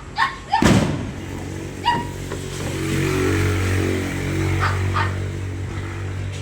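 A dog barking a few times in short, sharp barks, the loudest about a second in, over a steady low engine hum that swells in the middle.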